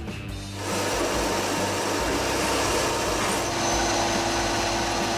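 A motorized cleaning tool running, with a steady rush of air starting just under a second in and a steady hum joining about halfway through, while the furnace's blower fins are cleaned.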